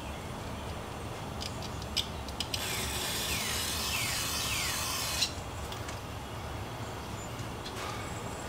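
Aerosol throttle body cleaner spraying in one steady hiss of nearly three seconds that cuts off suddenly, after a few sharp clicks from handling the can and parts.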